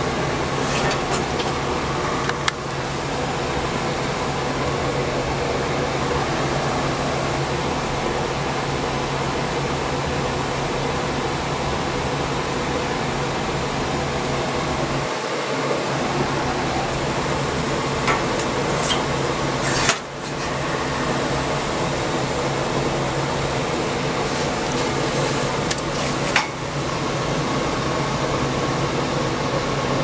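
Gas furnace running while it fires: a steady whoosh of blower and burners over a low hum. A few brief clicks break through it.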